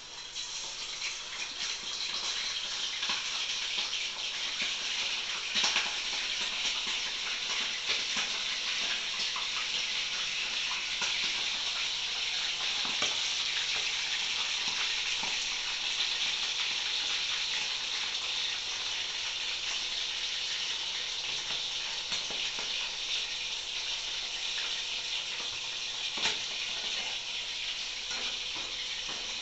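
Raw chicken pieces deep-frying in hot oil in an aluminium kadai: a steady sizzle that swells over the first couple of seconds as the pieces go in, then holds. A few sharp clicks stand out here and there.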